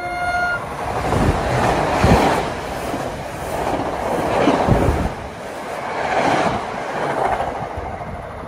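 New Jersey Transit multilevel passenger train passing close by at speed: the rumble and rush of the cars, with the wheels clattering loudly at irregular moments as the trucks go by.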